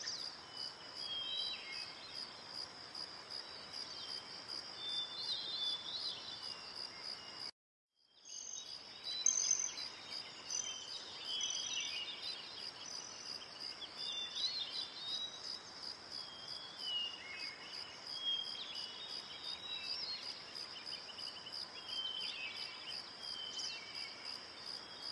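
Insects chirping in a steady, fast, even pulse, with short chirping calls scattered through it. The sound cuts out completely for about half a second a third of the way in, then resumes.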